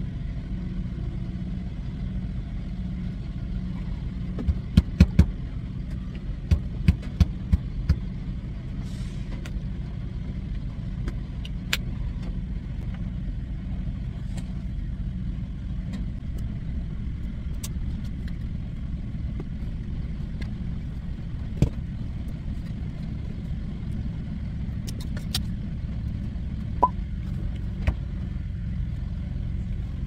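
Steady low rumble of a semi-truck's diesel engine running, heard inside the sleeper cab. Over it come sharp clicks and taps from handling the mini fridge's doors and their Velcro locks, a quick run of them about five to eight seconds in and a few single ones later.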